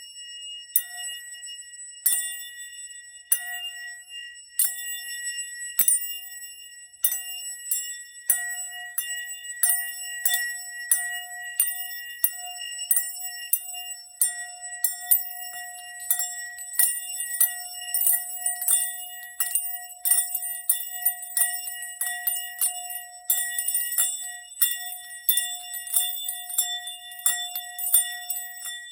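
Bells rung in repeated sharp strikes for a sound-healing meditation, each strike leaving a sustained ringing tone. The strikes come about once a second at first and quicken to several a second from about eight seconds in.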